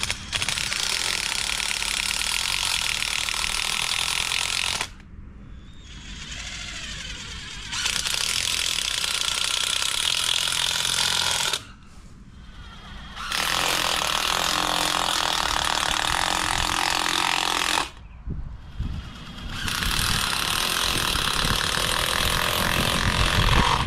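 Cordless drill running in four runs of about four seconds each, with short pauses between, drilling down through plastic panels laid on the ground.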